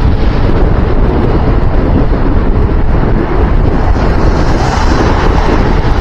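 Loud wind buffeting the microphone: a dense, unbroken rush with a heavy low rumble and a slightly brighter hiss about four and a half seconds in.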